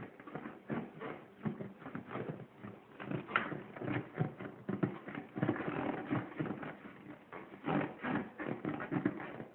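A small child's squeaky laughing, a string of short irregular squeaks and giggles.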